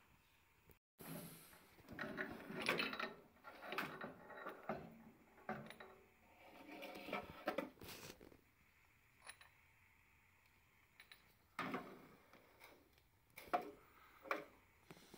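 Metal gas control valve of a gas boiler burner being handled by hand: clusters of knocks, scrapes and rattles as it is lifted and moved, then a few separate clicks near the end as it is set back in place.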